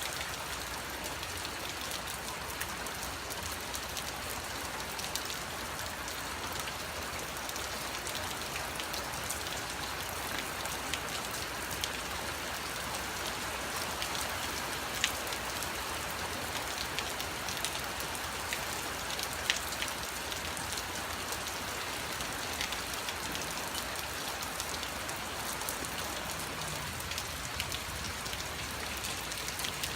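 Heavy rain from a passing squall line falling steadily, as an even hiss. Many sharp ticks of single drops strike close by, with a couple of louder ones in the middle.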